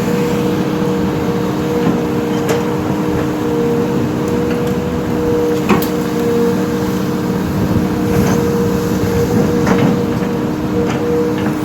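A heavy machine's engine running steadily with a constant whine over the rumble, and a few sharp knocks scattered through.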